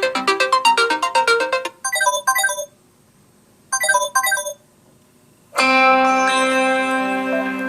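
Samsung Galaxy S20 stock ringtones playing. A quick run of bright plucked notes is followed by two pairs of short chimes with pauses between them. About two-thirds of the way in, a different tone starts with a sustained, guitar-like chord.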